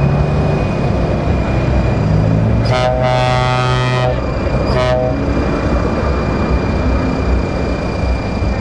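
A lorry air horn sounds one long blast of about a second and a half, then a short toot, over the low rumble of diesel truck engines crawling in a queue. A thin, steady high whine runs underneath.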